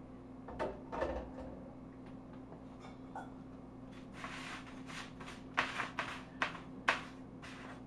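Small metal tongs moving freshly fried French fries around on parchment paper: light clicks, taps and paper rustles, sparse at first and busier in the second half. A faint steady hum runs underneath.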